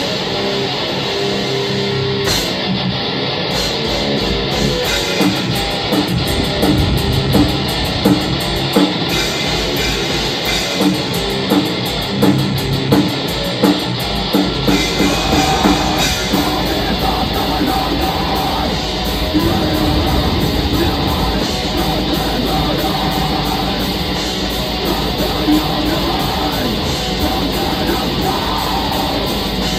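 Black metal band playing live: distorted electric guitars over bass and drum kit. About halfway through, the low end fills in as the drumming turns dense and continuous.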